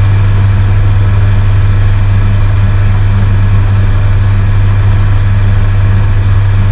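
Outboard motor of a Yamaha FAST26 pleasure boat running steadily with the boat underway: a loud, constant low drone.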